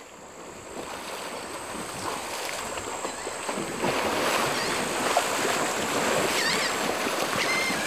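Muddy water churning and splashing as bottlenose dolphins charge up onto a creek bank, strand-feeding by driving mullet out of the water. The splashing builds over the first few seconds and is loudest from about four seconds in, with a few short high chirps near the end.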